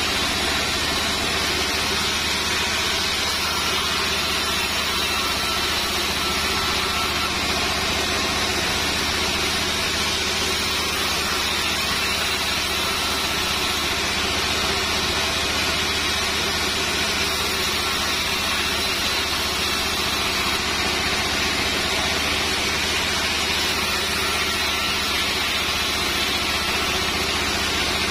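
Band sawmill running with a steady low hum and whir as its blade rips a sengon wood board lengthwise into battens.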